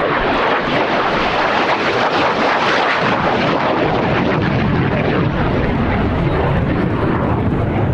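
Jet noise from a MiG-17F (Polish-built Lim-5) and its afterburning centrifugal-flow turbojet as it flies its display. It is a loud, steady noise with the low end growing heavier toward the end.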